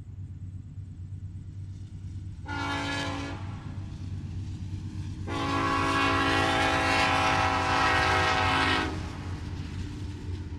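Norfolk Southern diesel freight locomotive sounding its multi-tone air horn, a short blast about two and a half seconds in, then a long, louder blast of about three and a half seconds, over the steady low rumble of the locomotives. The pattern fits the close of the grade-crossing signal as the train reaches the road crossing.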